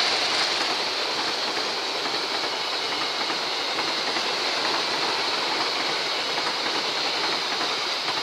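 A KAI passenger train going by close at speed: the diesel locomotive passes at the start, then the coaches roll past in a steady rush of wheel-on-rail noise with a high hiss over it.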